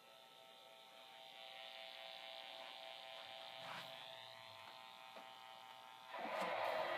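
Lionel O-gauge model train running: a steady electric buzz of the motors and rolling cars, with a brief rising whine just before the middle. About six seconds in the sound jumps suddenly louder and becomes noisier as the Dash 8 locomotive comes up close.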